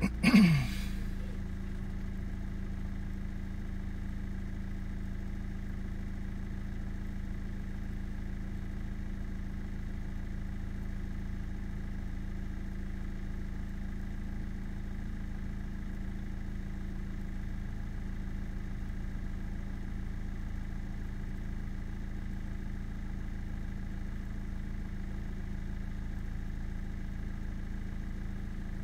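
A car engine idling steadily while stopped in traffic, heard from inside the cabin. A brief, loud knock comes about half a second in.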